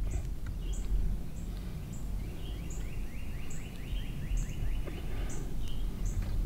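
Woodland bird sounds: short high calls repeating about once a second, and a rapid trill for about two seconds in the middle, over a steady low rumble.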